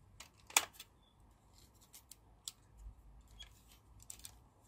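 Hands handling a WPL B-1 RC truck's plastic body: scattered small plastic clicks and rubbing, with one sharp click about half a second in.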